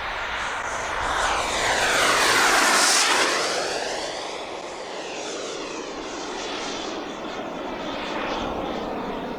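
Twin model turbine jet engines of a large RC English Electric Lightning making a low pass: a steady rushing jet sound swells to its loudest about three seconds in, then fades as the model flies away.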